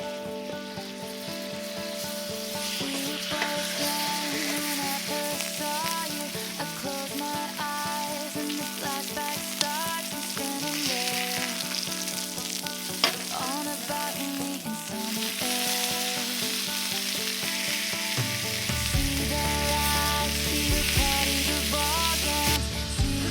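Steak sizzling and frying over a campfire, a steady crackling hiss, under background music that gains a heavy bass line near the end.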